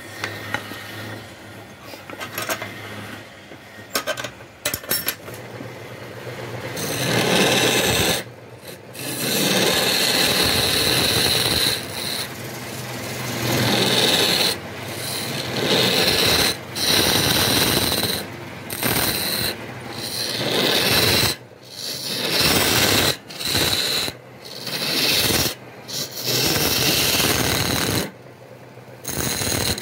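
Lathe tool scraping into the end grain of a spinning palm-wood blank, a dense hissing cut. After a quieter start with a few clicks, it comes in passes of one to three seconds, each cut off by a short break as the tool is eased away and pressed in again.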